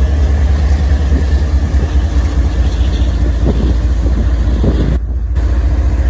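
CSX GE ES40DC diesel-electric locomotive passing close by, its diesel engine giving a steady, low pulsing rumble, with wind buffeting the microphone.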